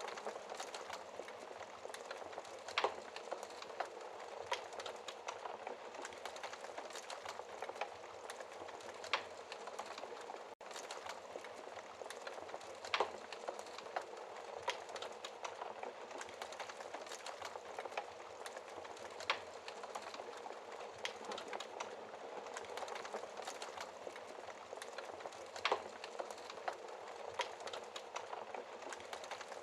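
Wood fire crackling in a fireplace: a steady hiss with many small snaps and a louder pop every several seconds.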